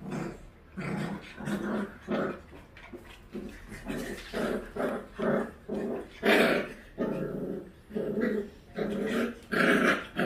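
Dogs play-fighting: a puppy and an older dog wrestling, with a string of short play growls about every half second, a couple of them louder and sharper.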